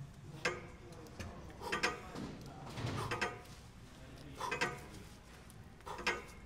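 Scattered metallic clanks and knocks of gym weights and equipment being handled, five or six over a few seconds, with faint voices in the background.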